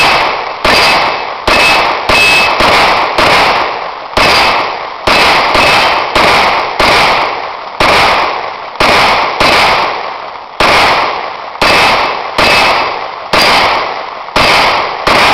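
Full-size SIG 9mm pistol fired in slow rapid fire: about twenty loud shots, roughly one every three-quarters of a second at an uneven pace, each fading out before the next.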